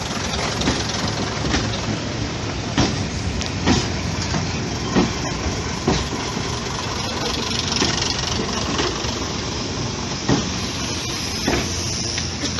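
Heritage diesel multiple-unit train, including a Class 121 bubble car, rolling slowly past over a steady running rumble. Its wheels give a string of sharp clacks over the rail joints, about one a second, with a longer gap near the middle.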